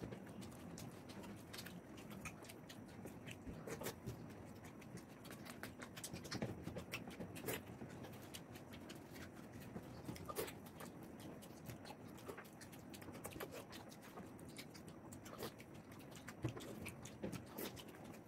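Faint eating sounds: chewing and mouth smacks, with scattered irregular small clicks and taps of fingers on plates as puris are torn and eaten by hand.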